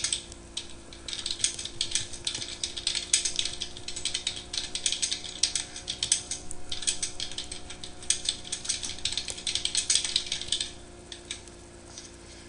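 Typing on a computer keyboard: a fast, uneven run of keystroke clicks that stops near the end, over a faint steady hum.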